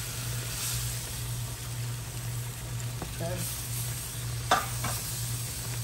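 Pan gravy sizzling in a hot skillet as freshly added water cooks into the roux, with a spatula stirring through it. Two sharp clicks from the spatula hitting the pan about four and a half seconds in.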